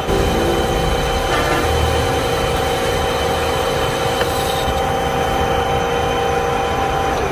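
Metal lathe running under power, turning a steel shaft, with a steady whine from the spinning chuck and drive.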